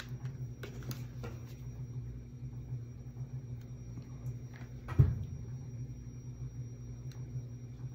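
Light clicks and taps of craft pieces and a mini hot glue gun being handled on a tabletop, with one sharper knock about five seconds in, over a steady low hum.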